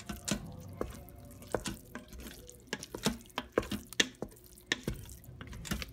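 A wooden spoon stirring thick risotto in an Instant Pot's stainless steel inner pot: irregular sharp clicks and scrapes, several a second.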